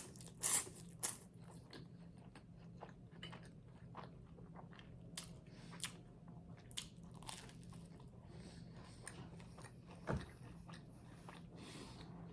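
A person biting into crunchy garlic bread close to the microphone: a few loud crunches in the first second, then quieter crackly chewing, with one more loud crunch near the end.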